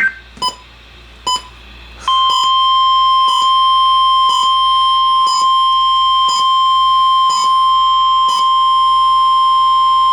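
Emergency Alert System weather alert tones: two short beeps, then about two seconds in a steady, single-pitched warning alarm tone comes on and holds, with faint ticks about once a second. The alarm tone announces a new National Weather Service alert.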